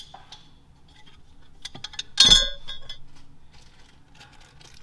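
A few small clicks, then one sharp metallic clink with a short ring about two seconds in, like a small metal part or tool knocked or set down.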